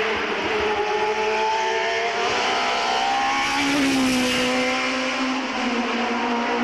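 Race car engine accelerating hard on a hillclimb course, revs climbing steadily, then dropping at a gear change about three and a half seconds in before pulling on.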